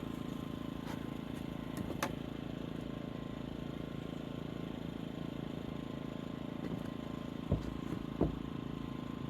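Two dull thumps near the end as the wooden post is knocked into square, over a steady low hum, with a faint click about two seconds in.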